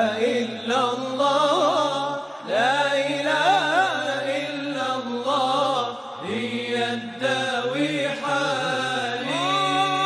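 Islamic devotional chant (nasheed) in Arabic: a solo voice drawing out long, wavering, ornamented notes over a low steady drone, with short breaks between phrases.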